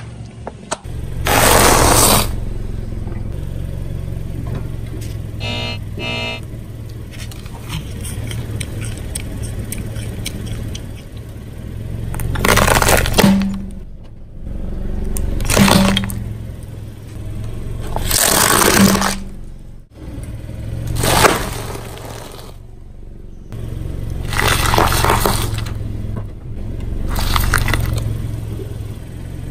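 A car tyre rolling over and crushing a series of objects one after another, including plastic water bottles and a ceramic plate heaped with fruit: about seven loud crunches, cracks and splats a few seconds apart, over a steady low hum.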